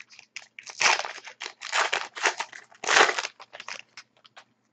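Panini Contenders hockey card pack wrapper crinkling and tearing as it is opened by hand: a run of short rustles, loudest about one, two and three seconds in, thinning out near the end.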